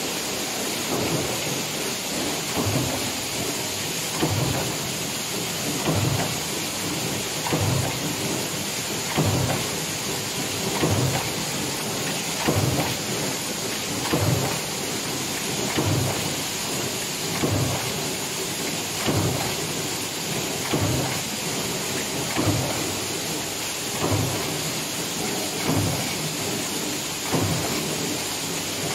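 Mechanical stamping press running a progressive die for cabinet hinge cups, a heavy thud at each stroke about every second and a half over a steady machine noise.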